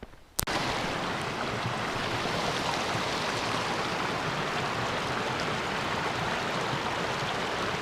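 Steady rush of a running mountain stream, starting abruptly with a click about half a second in.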